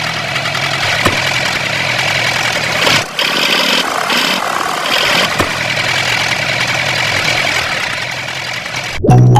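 A small motor running steadily with a faint high whine, briefly dropping about three seconds in. Music starts just at the end.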